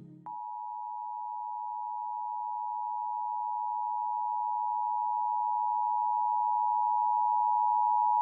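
Emergency Alert System attention signal: the steady two-tone alert (853 and 960 Hz sounded together), held for about eight seconds and growing slightly louder before it cuts off suddenly. The tail of soft ambient music ends just before it begins.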